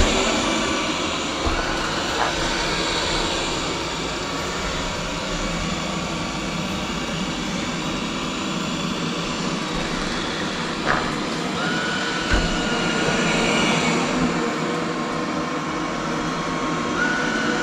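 Roborock S8 robot vacuum running, a steady whir from its suction fan and brushes, with a few light knocks past the middle.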